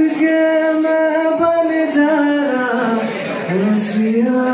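A man's singing voice holding long, sliding notes in a live performance, with an acoustic guitar strummed underneath.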